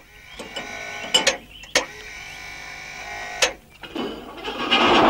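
A few sharp metallic clicks, then about 4.7 s in a tank engine starts up with a loud, steady noise. It only sputters and does not get the tank moving.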